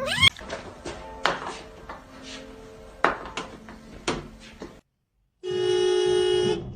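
A cat's meow ends right at the start, followed by a few soft knocks and thuds in a quiet room. After a brief gap, a steady held musical tone sounds for about a second.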